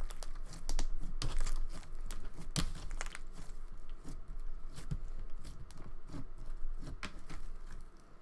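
Overactivated pink butter slime being kneaded and pressed flat by hand, giving a dense run of irregular crackles, clicks and small pops that stops near the end.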